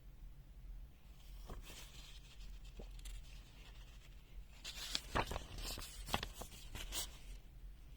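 Light clicks and taps from handling and operating a digital multimeter, with a quick run of sharper clicks about five to seven seconds in.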